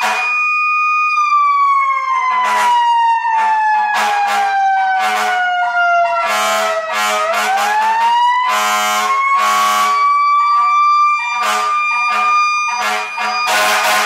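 A siren holding a high tone, then winding slowly down in pitch for about six seconds before swooping back up and holding again. Over it, chrome trumpet air horns sound a string of short blasts, with a longer blast near the end.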